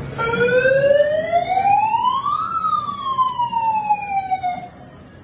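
Siren wail: one tone sweeping steadily up for about two and a half seconds, then sliding back down and cutting off near the end.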